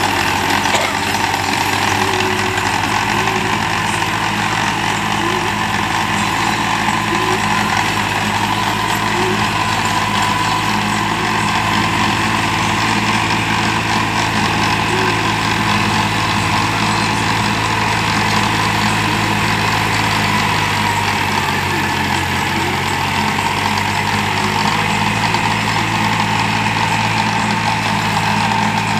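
New Holland tractor's diesel engine running steadily under load, driving a rear-mounted rotavator that churns through soil and banana crop residue, with a steady high whine over the engine note.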